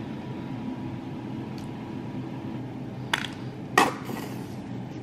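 A metal fork clinks twice against a stainless steel mixing bowl while eggs are mashed, two sharp knocks less than a second apart about three seconds in, over a steady low hum.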